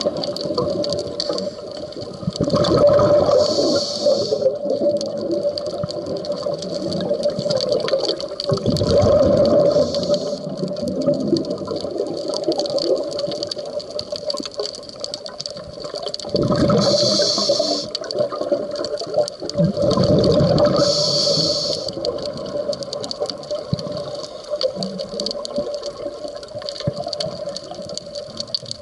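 Scuba diver breathing through a regulator underwater: a gush of exhaled bubbles and a hiss from the regulator come every several seconds, about four times, over a steady hum.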